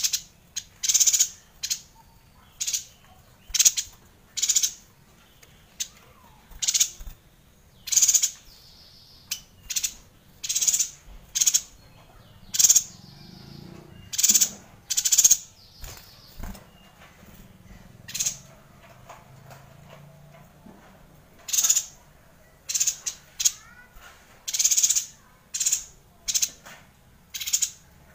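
Yuhina calling over and over: short, harsh, high-pitched notes about one a second, with a lull of a few seconds around the middle.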